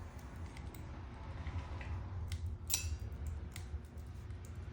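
A few small metallic clicks and taps, spaced out with the loudest a little past the middle, from a key and the rebuilt lock cylinder of a 1959 Mercury ignition switch being worked by hand, over a steady low hum.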